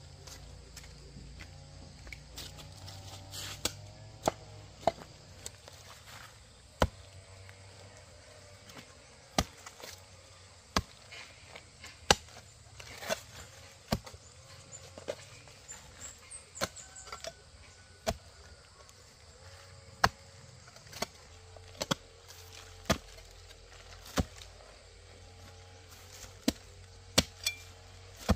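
A metal hoe chopping into packed earth, digging a trench: sharp, separate strikes at an uneven pace of roughly one a second.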